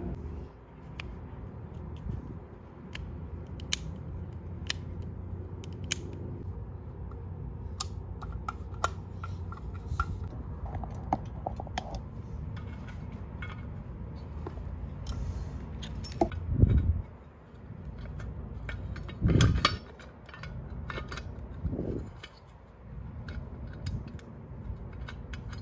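Small clicks and taps of plastic and metal parts of a drill bit sharpener being handled and fitted together, with a few louder dull knocks in the second half as the plastic housing sections are pressed into place.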